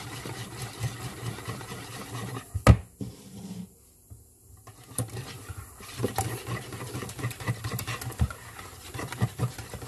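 Wire whisk beating eggs and evaporated milk in a plastic mixing bowl, the whisk ticking quickly against the bowl. There is a single sharp knock a little under three seconds in, and a short lull around four seconds before the whisking picks up again.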